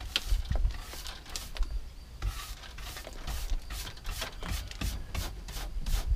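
Stiff hand brush sweeping the wooden floorboards of a rabbit hutch in a quick run of short, irregular strokes, brushing droppings down through the wire mesh.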